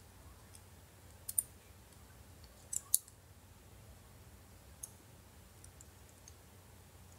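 Faint, sharp clicks of small parts being handled and pressed into a disassembled LG V20 smartphone's frame: a pair about a second in, a louder pair near three seconds, then a few lighter ticks.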